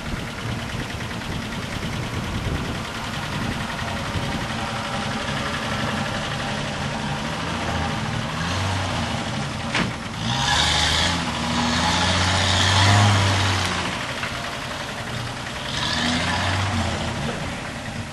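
Land Rover Series station wagon's engine running off-road through mud, its revs rising and falling. It is loudest from about ten to fourteen seconds in, with a rushing noise over the revving, and there is a single sharp click just before.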